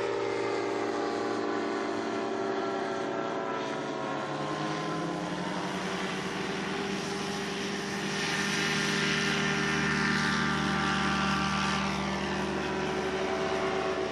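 RANS Coyote S4/S5 ultralight's two-stroke Rotax engine and propeller running at takeoff power. Its pitch climbs midway as the plane rolls and lifts off, it is loudest a few seconds later, and it drops in pitch near the end as the plane passes and climbs away.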